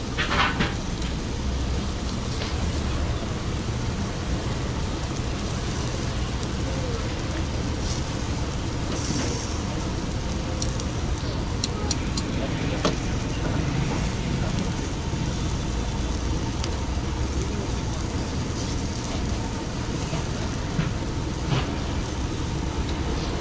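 Steady low rumbling background noise of a street-food stall, with scattered light clicks and taps and faint voices.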